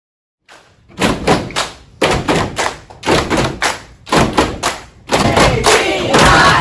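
Rhythmic stomping and clapping by a group, sharp strikes in a repeating three-beat pattern about once a second, with voices joining in near the end.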